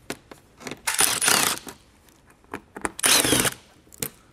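Handheld power drill spinning out small 8 mm bolts: two short whirring bursts, about a second in and about three seconds in, with light clicks of bolts and tool between.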